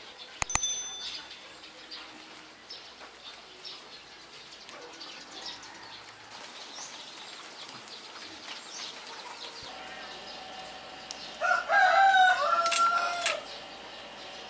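A sharp click with a brief high chime, then a quiet outdoor background with scattered faint chirps. About eleven and a half seconds in, a rooster crows loudly for about two seconds.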